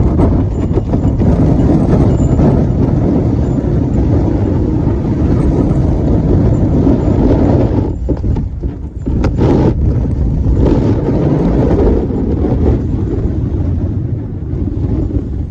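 Gale-force wind buffeting the phone's microphone: a loud, low rumbling rush that eases briefly about eight seconds in.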